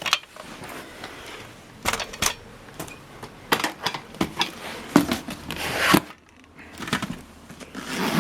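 Irregular clicks and clatter of a portable typewriter and its carrying case being handled, with a swelling scraping rustle that stops abruptly about six seconds in.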